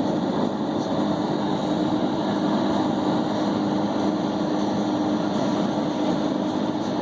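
Car engine running steadily, an even drone with no changes.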